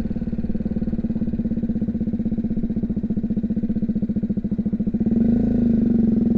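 BMW G310GS single-cylinder engine running steadily at low revs, heard through a microphone inside the rider's helmet; the engine note picks up a little about five seconds in.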